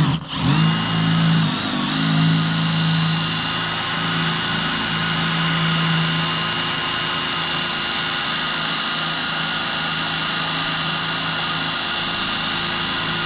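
Electric drill running steadily at a constant speed, boring a mounting hole for the trolling motor, then cutting off abruptly at the end.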